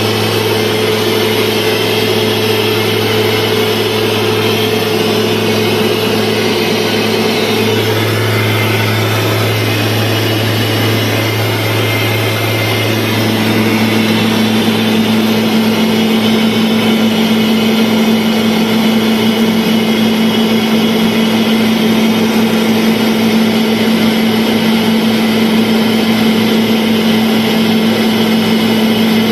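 Steady drone of an airliner in flight heard from inside the cabin: a loud, even hum with a few steady tones underneath. Less than halfway through, the tones shift and the drone gets a little louder.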